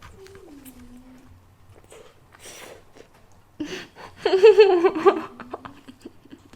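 A woman's voice: a short falling hum near the start, then a loud burst of high-pitched giggling about four seconds in.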